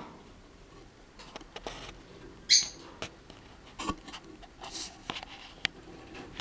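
Rosy-faced lovebirds in the nest: one brief, sharp, high-pitched chirp about two and a half seconds in, among scattered soft clicks and rustling.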